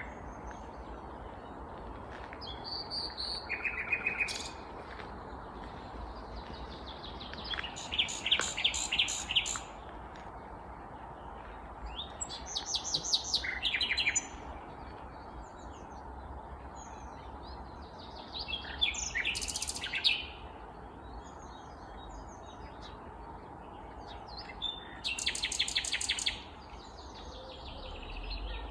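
Nightingale singing: about five separate song phrases of fast, rapidly repeated notes, a few seconds apart, over a steady low background rumble.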